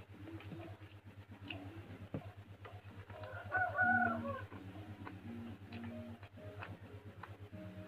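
A rooster crows once, about three and a half seconds in, lasting about a second and falling in pitch at the end, over a steady low hum and a few faint clicks.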